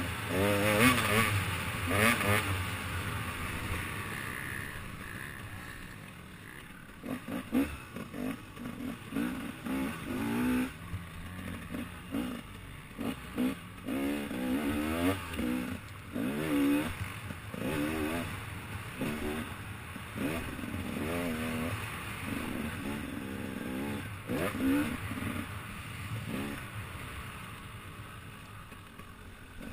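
Dirt bike engine revving hard, heard close up from the rider's helmet. Its pitch climbs and drops in short surges about once a second as the throttle is worked over the bumpy track.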